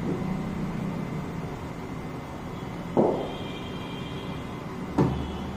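Two knocks from cricket practice in an indoor net: a dull knock about 3 seconds in with a faint ringing after it, and a sharper crack about 5 seconds in, over a steady low hum.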